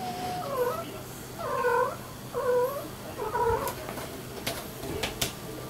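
Munchkin cat giving four short, curving calls while playing, followed by a few sharp knocks as the cats jump onto and scramble on the carpeted cat tower.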